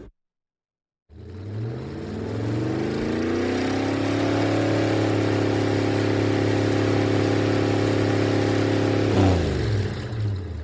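Car engine accelerating slowly. After about a second of silence its pitch climbs over roughly three seconds, holds steady at high revs, then drops as it slows down near the end.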